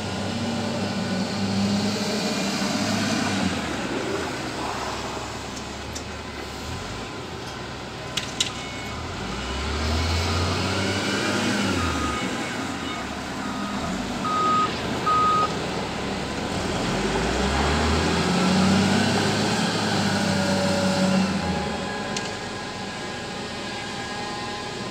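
Volvo L60F wheel loader's diesel engine working, revving up and settling back twice as it drives and handles loads. About halfway through, a backup alarm beeps several times.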